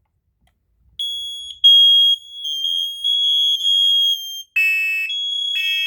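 First Alert 7010B hardwired smoke alarm sounding a steady, high-pitched alarm tone from about a second in, set off with its test button. About four and a half seconds in, a second, buzzier alarm on the same hardwired system joins, pulsing on and off about once a second.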